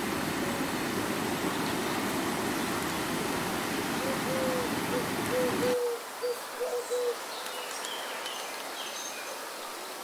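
Shallow rocky stream rushing over stones, which cuts off abruptly about six seconds in. From about four seconds in, a bird gives a run of short, low hooting notes, and faint high bird chirps follow once the water stops.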